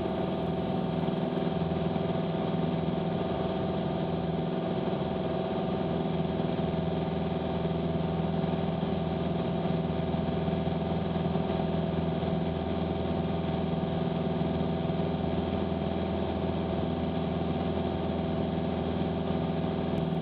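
Piper PA-28 Warrior's four-cylinder Lycoming engine and propeller running at climb power, heard inside the cabin as a steady, even drone.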